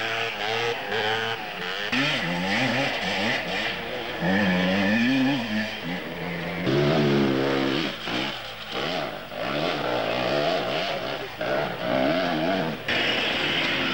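Enduro motorcycle engines revving hard, their pitch rising and falling again and again, with more than one engine heard at times.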